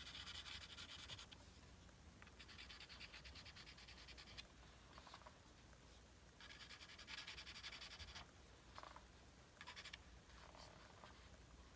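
Faint scratching of a pastel pencil on paper in quick, rapid strokes: three spells of a second or two each, with a few brief touches in between.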